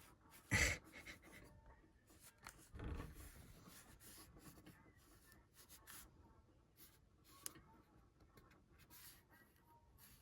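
Faint scratching and rubbing as the inside of an opened tablet is cleaned, broken by short scratches and taps. There is a louder brief sound about half a second in, and a longer scraping stretch about three seconds in.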